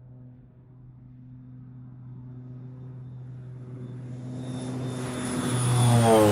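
Beechcraft King Air twin-turboprop airplane approaching and passing by: the propeller drone and high turbine whine grow steadily louder, peaking near the end as the pitch drops sharply with the pass.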